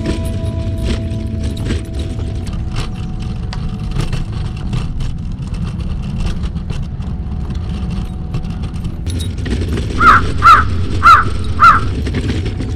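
A crow cawing four times in quick succession, about half a second apart, near the end, over a steady low rumble.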